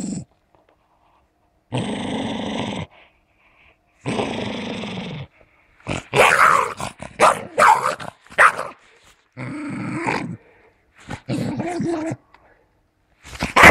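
Dog growling while it holds a game bird in its jaws, guarding its catch: long low growls about a second each, three times, with a run of short, loud snarls and barks in the middle.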